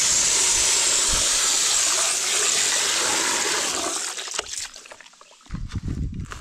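Water running and splashing as a loud, steady rush that starts suddenly and dies away about four seconds in, followed by a few light knocks.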